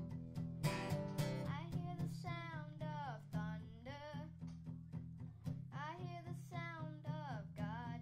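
Acoustic guitar strummed steadily while a young boy sings over it, in two sung phrases with a short pause between them.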